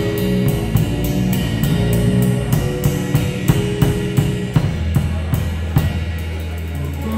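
Live jazz from a drum kit and an electric bass: steady cymbal strokes and drum hits keep time over a walking bass line. About halfway through, the bass settles on one long held low note while the cymbal strokes carry on.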